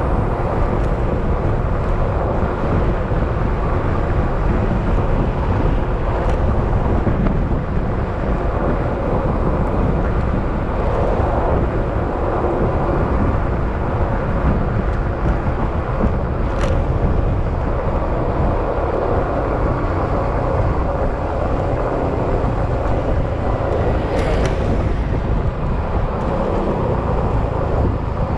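Yamaha XMAX scooter's single-cylinder engine running steadily while riding, under heavy wind and road noise. Two brief clicks, about sixteen and twenty-four seconds in.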